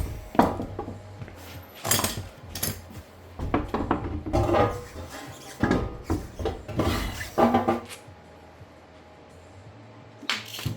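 Irregular metallic clanks, knocks and clinks of a wheel and lug nuts being handled while the wheel is fitted back onto the hub. The clatter is steady for about eight seconds, goes quieter, then ends with one more knock.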